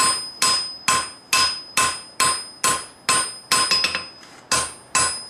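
Hand hammer striking steel on an anvil, forging it out in a steady rhythm of about two ringing blows a second. A few light taps and a pause of about a second come a little before the fourth second, then the hammering resumes.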